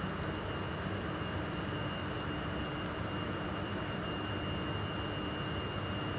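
Steady blower noise of a vertical laminar-flow hood: an even rush of air with a low hum and thin high whines that hold steady.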